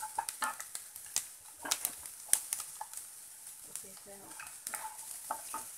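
Wooden spoon stirring peanuts and cashews being fried in a little oil in a nonstick kadhai. Irregular clicks and scrapes of the spoon and nuts against the pan sound over a light sizzle.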